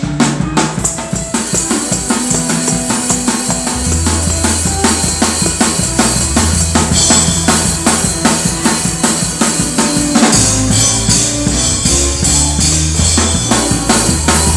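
Drum kit played in a fast gospel praise-break rhythm, with rapid, dense hits. Sustained low bass notes join underneath about four seconds in.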